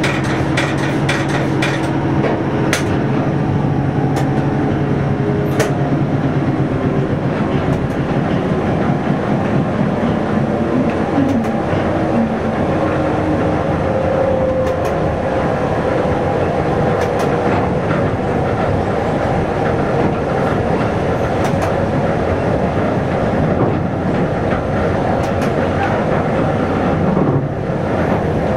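Local train running along the track, heard from inside the driver's cab: a steady rumble of wheels and running gear with occasional sharp clicks over rail joints. A steady low engine hum fades out a few seconds in.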